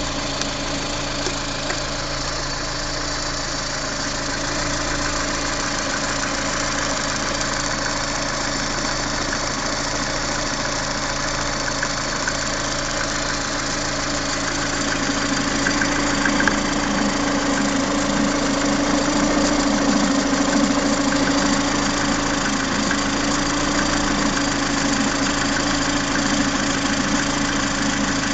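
Lada Priora's VAZ-21126 1.6-litre sixteen-valve engine running steadily, with a knock from the pistons and connecting rods, on an engine of only 12,000 km. It gets a little louder from about halfway.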